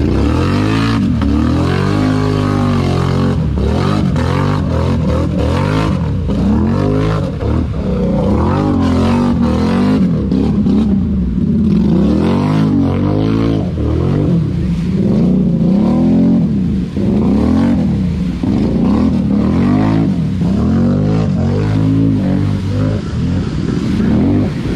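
ATV engine being ridden hard, its pitch swinging up and down every second or two as the throttle is opened and let off over and over.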